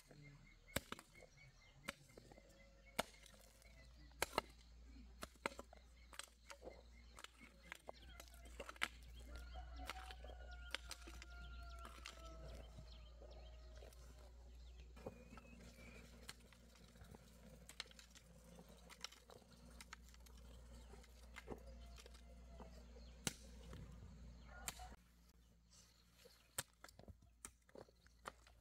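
Quiet rural background: scattered small clicks and knocks and faint bird calls over a steady low hum.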